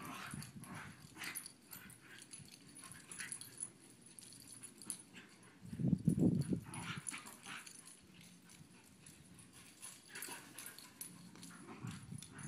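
Dogs playing rough, with a loud burst of low dog vocalizing about six seconds in and fainter bouts of it near the start and around ten seconds.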